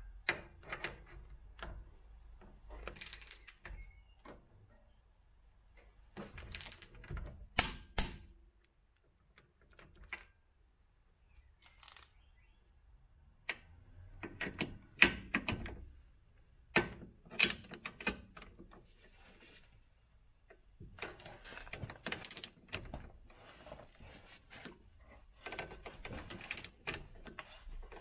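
Hand tools and metal parts clicking, clinking and knocking in irregular clusters with quiet gaps between, the sound of hands-on work on a car's rear suspension.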